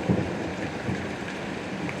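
Steady rain falling with low, rolling rumbles of thunder, swelling just after the start.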